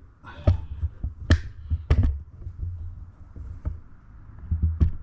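About six sharp knocks and taps, irregularly spaced, over a low rumble of handling.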